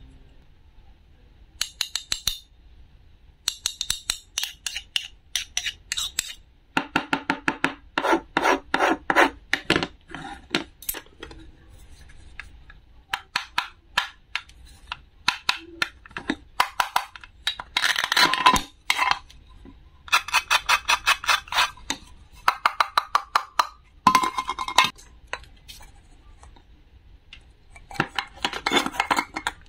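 A wooden toy knife and plastic play fruit handled and scraped over a plastic cutting board, making scratchy rasping. It comes in repeated runs of a second or two of rapid fine clicks, with short pauses between.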